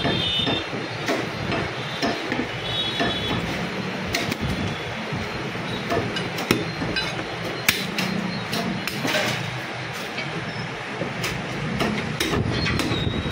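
Heavy butcher's cleaver chopping through goat leg bones and meat on a wooden block: irregular sharp knocks, the two hardest strikes a little past the middle. A steady background din of traffic and street noise runs underneath.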